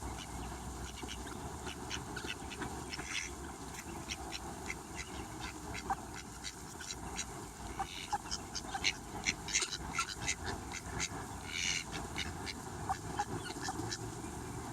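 A small bird making many soft, short chirps and clicks, busiest around the middle, with a couple of slightly longer calls.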